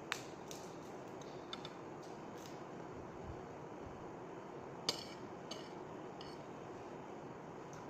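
Metal spoon clinking and scraping against a ceramic plate while eating, a handful of short sharp clicks, the loudest just after the start and about five seconds in.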